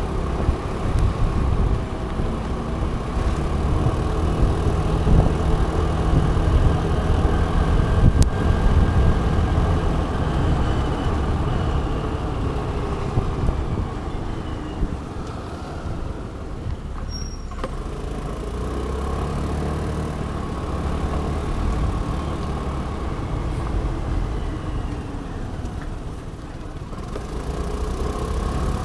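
Road traffic heard from a moving motor scooter: engine running and road noise, with other vehicles around. The engine note rises and falls, and the sound eases off briefly about two-thirds of the way through.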